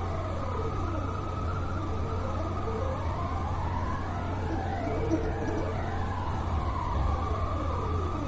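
Stepper motors of a belt-driven pen plotter whining as the pen traces a circle, several tones sliding up and down in overlapping arcs as the two axes speed up and slow down around the curve.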